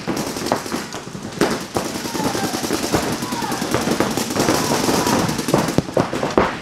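Electronic paintball markers firing rapid, continuous streams of shots, a dense fast popping, with players shouting over it.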